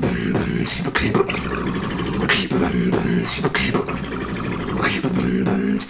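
A beatboxer performing a short vocal beat: a steady hummed bass note held underneath, punctuated by sharp snare-like mouth hits about once a second.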